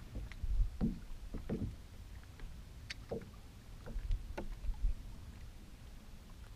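Small waves lapping and slapping against a bass boat's hull in irregular splashes, mostly in the first few seconds, over a low rumble of wind on the microphone.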